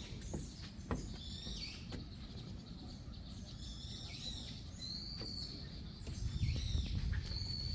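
Wild birds calling overhead, repeated high thin notes, some slurring downward, over footsteps on a wooden boardwalk.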